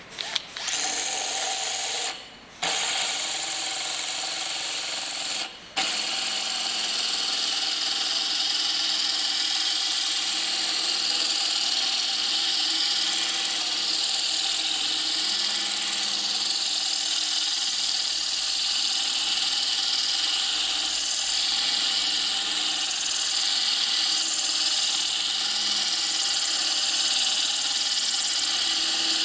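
Drill running a wet diamond core bit into thick porcelain tile: a steady, high-pitched grinding whine. It stops briefly about two seconds in and again near six seconds, then grinds on without a break.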